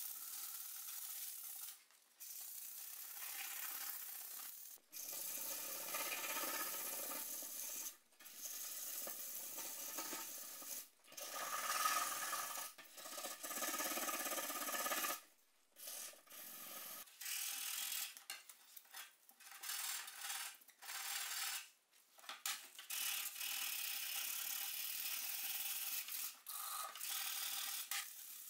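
Sandpaper disc rubbed by hand along a rusty steel machete blade, abrading the rust off: a steady scratchy hiss, broken by short pauses every few seconds.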